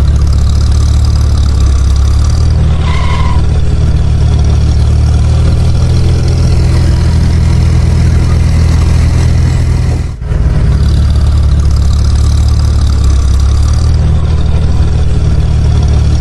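An engine running steadily and loudly at an even speed, with a brief break about ten seconds in.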